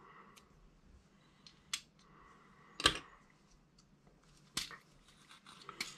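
Small sharp plastic clicks and taps from handling a Kyosho Mini-Z RC car, four clear ones spread over several seconds, the loudest about three seconds in.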